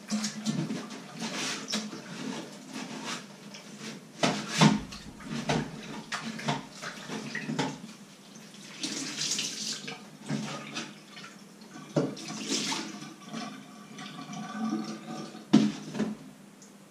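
Dishes being washed by hand in a stainless-steel sink: water splashing and sloshing as a sponge scrubs, with irregular clinks and knocks of crockery and pots against the sink, the loudest about four seconds in and near the end.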